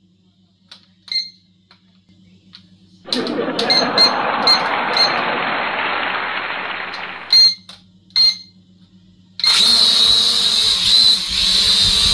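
Small toy quadcopter drone: a few short beeps, a rushing noise from about three to seven seconds in, then its propellers start at about nine seconds with a loud, steady high whine as it lifts off.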